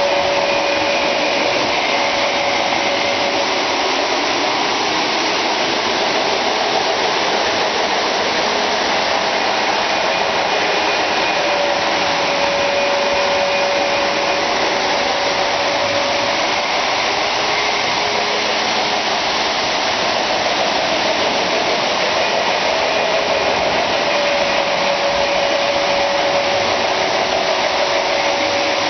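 Many O-gauge model trains running at once on metal three-rail track: a steady whirring rumble of motors and wheels, with a faint whine that comes and goes three times.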